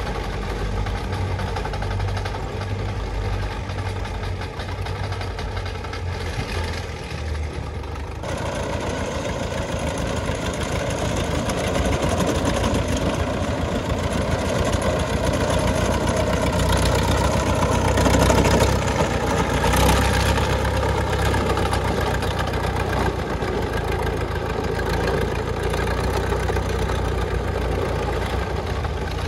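Tractor's diesel engine running: steady and low for the first several seconds, then from about eight seconds in it grows louder and fuller, loudest a little past the middle, as it is driven under load.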